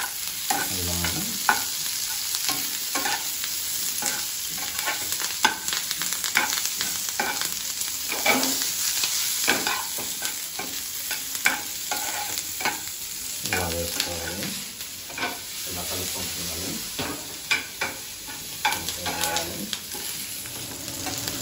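Diced capsicum, onion, garlic and ginger sizzling in hot oil in a frying pan, stirred and scraped with a metal spatula that clinks against the pan many times.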